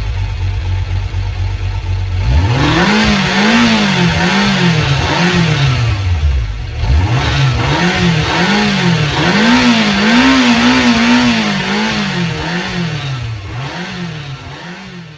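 Motorcycle engine idling, then about two seconds in revved again and again in quick throttle blips, the pitch rising and falling with each one, held higher for a couple of seconds past the middle.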